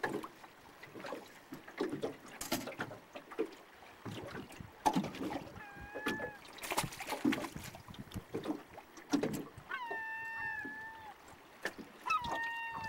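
Common loon calling three times, each call about a second long and rising into a held note, over scattered knocks and clunks of gear being handled in an aluminum fishing boat.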